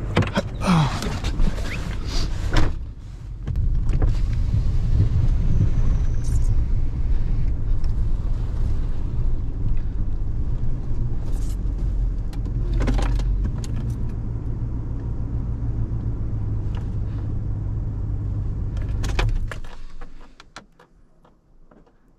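Pickup truck door clunks and rattles in the first few seconds as someone gets into the cab. Then the truck's engine rumbles steadily, heard from inside the cab, until it cuts off suddenly near the end.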